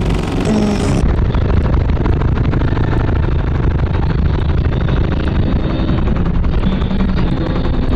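Car-audio subwoofer system in a Chevrolet Avalanche playing bass-heavy music at extreme volume, heard as a dense, distorted crackle over heavy bass.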